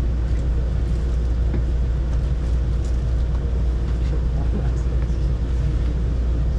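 Metro train running, heard from inside the passenger car: a steady low rumble with a thin steady hum above it.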